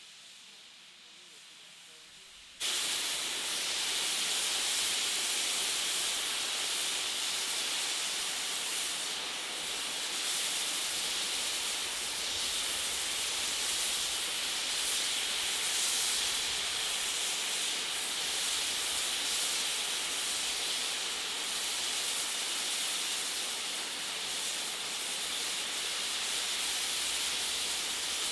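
Steam blowing off steadily from a BR Standard tank steam locomotive's safety valves, starting suddenly about two and a half seconds in and holding loud and even: the boiler is at full working pressure.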